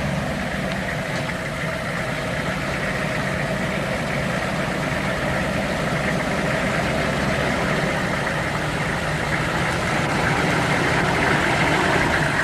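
Hummer H1 engine running slowly as the truck crawls down a rough dirt trail, growing a little louder toward the end as it comes closer.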